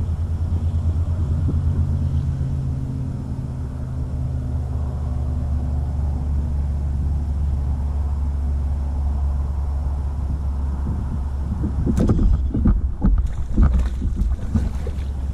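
Kayak drive running with a steady low mechanical hum, then a quick run of knocks and clatter on the hull and gear about twelve to fourteen seconds in.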